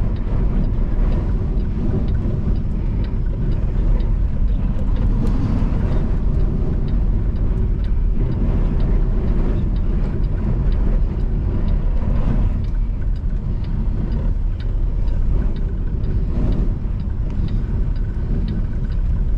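Steady low rumble of a semi-truck driving at road speed in strong wind, heard from inside the cab: engine drone mixed with road and wind noise, with scattered light rattles.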